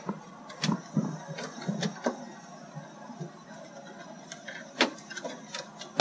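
Irregular plastic clicks and light knocks as a 1999 Toyota Sienna's interior front door handle is worked onto its mounting hooks on the bare steel door, catching on a small nub.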